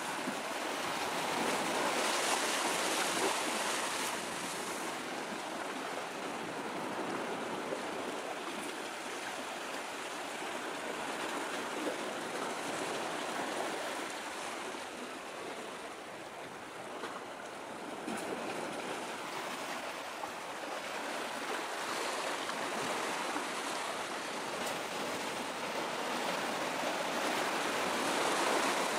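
Steady rush of small harbour waves washing against the shore, swelling a little now and then.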